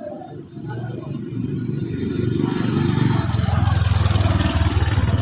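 An engine running, growing louder over the first few seconds and then holding steady with a fast, even pulse, like a motor vehicle drawing near.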